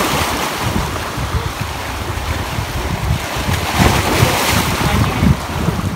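Sea waves washing against a rocky breakwater, with wind buffeting the microphone; a wave breaks and splashes up about four seconds in.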